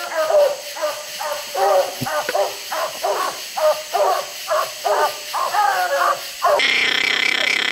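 Treeing Walker coonhounds barking treed at a raccoon: a steady run of chop barks, about two a second. Near the end a loud, steady, high-pitched tone starts and holds.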